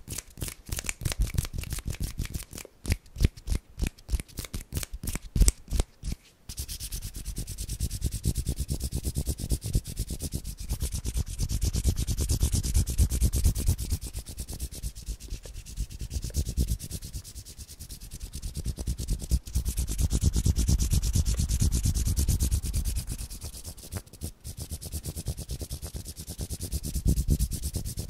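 Bare hands rubbing together close to the microphone. For about the first six seconds it comes as a quick run of separate strokes. After that the rubbing is continuous and fast, swelling and fading in waves.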